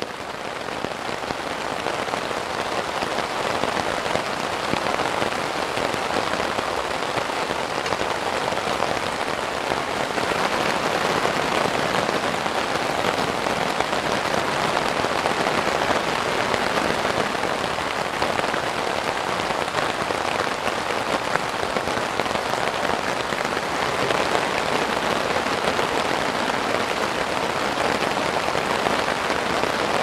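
Steady rain falling in a forest, fading in over the first couple of seconds.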